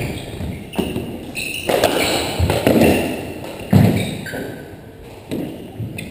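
Doubles squash rally: the ball cracked off racquets and smacked against the walls about once a second, each hit ringing in the enclosed court, with short shoe squeaks on the hardwood floor between strokes.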